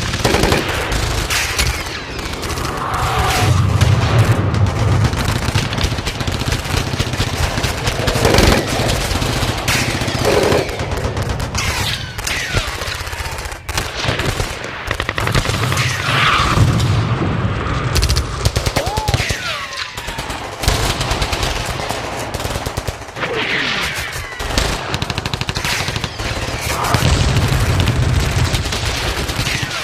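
Battle sound effect: continuous rapid gunfire and machine-gun bursts over a heavy low rumble, with several brief whistling glides heard over the shooting.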